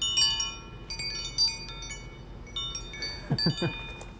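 A bunch of metal keys being jingled, clinking in quick clusters of bright, ringing tones: a key jingle test of a wireless microphone transmitter. A brief rising sound comes about three seconds in.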